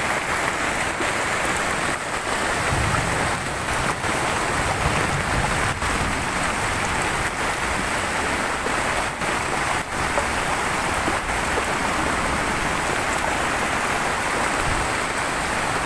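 A steady rush of water: heavy rain, with flash-flood water pouring off the mountainside and across the road.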